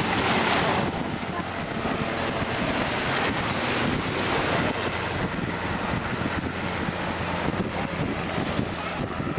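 Light helicopter on pontoon floats flying past, its rotor and engine a steady low hum, heard under heavy wind buffeting on the microphone and the wash of surf.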